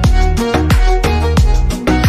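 Background music with a steady, fast beat and deep sliding bass thumps.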